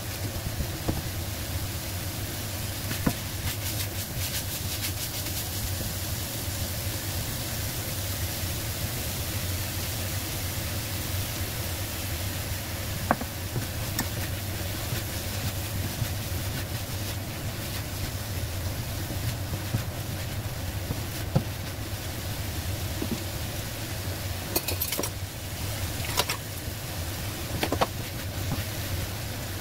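Minced pork and onion sizzling in a steel wok while a spatula stirs them, with a few sharp clicks of the spatula against the wok, over a steady low hum.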